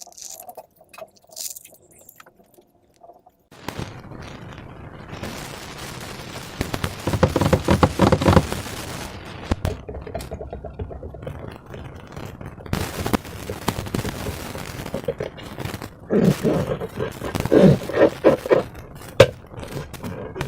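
Hands working slime: a run of wet crackles, small pops and scraping that starts a few seconds in and is loudest about halfway and again near the end.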